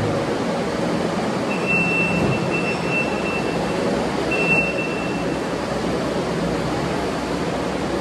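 Kubota SVL95-2S compact track loader's diesel engine running steadily as the machine drives and turns on a concrete floor. A thin high-pitched squeal sounds twice, first for nearly two seconds starting about a second and a half in, then for about a second a little past the middle.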